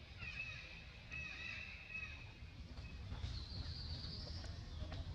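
High-pitched wild animal calls: wavering chirps for the first two seconds, then a higher buzzing trill about three seconds in, over a steady low rumble.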